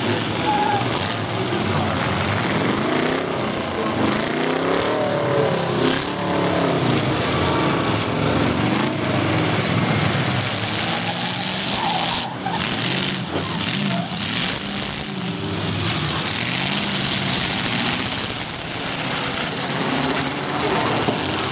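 Full-size demolition derby cars' engines revving and running together, with metal-on-metal crashes now and then, the sharpest about twelve seconds in.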